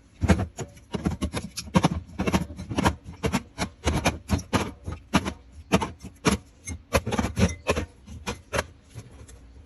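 Drink cans and bottles being set down one after another while a fridge is restocked: a quick, uneven run of knocks and clinks, about three or four a second, that thins out near the end.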